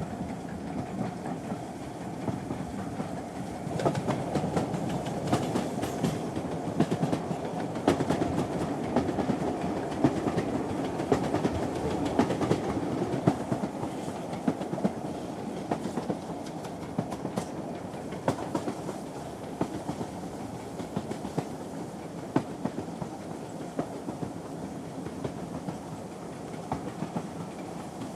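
Train running at a steady speed: a continuous rumble of wheels on the rails with frequent sharp clicks and clacks over the rail joints, swelling a little about four seconds in and easing off in the second half.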